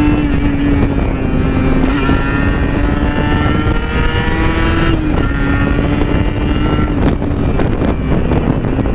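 Sport motorcycle engine running steadily while riding at road speed, its note rising and dipping a little with the throttle, over wind rushing across the microphone.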